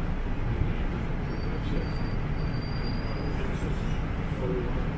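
Steady low rumble and hum inside a Toronto Rocket subway car standing at a station with its doors open, the car's ventilation and onboard equipment running, with faint high-pitched whines in the middle.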